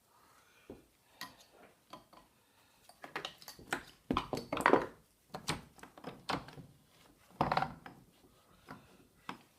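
Metal lathe apron parts and hand tools being handled during disassembly: irregular metallic clinks, taps and knocks, some ringing briefly, busiest and loudest around four to five seconds in and again near seven and a half seconds.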